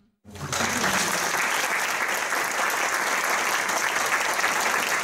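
Audience applauding, breaking out suddenly just after the start and holding steady and dense.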